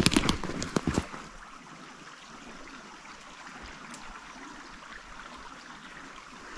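A few crunching footsteps in the first second, then the steady faint rush of a small forest stream.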